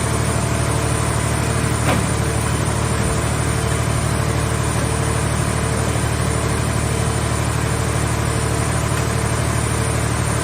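Scrap car baler's engine running steadily, with a single short knock about two seconds in.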